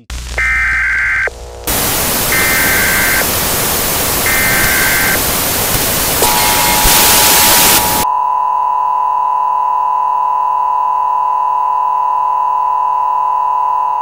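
Loud television static hiss with three short electronic beeps about two seconds apart. About eight seconds in, the static cuts off suddenly, leaving a steady electronic test-card tone, which had begun faintly under the hiss, running on alone.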